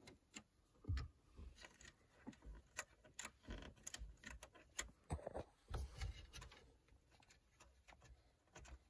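Faint, irregular small clicks and taps of a screw being backed out of the dash trim beside a car stereo, first with a screwdriver and then turned out by hand.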